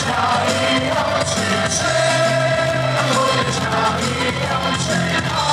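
Baseball cheer song with a sung melody, playing loudly through the stadium's cheer-stage loudspeakers.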